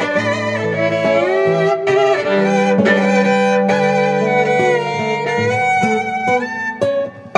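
Violin and acoustic guitar playing together: the violin carries a melody with vibrato and sliding notes over the guitar's chords and bass notes.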